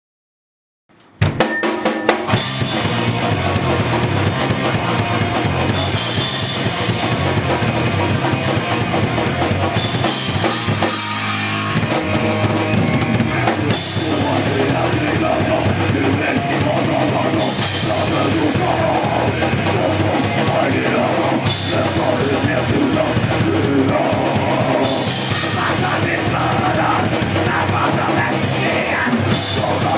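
Rock band with electric guitar, bass and a drum kit playing the instrumental opening of a song, loud and driving, with cymbal crashes every few seconds. It starts suddenly about a second in.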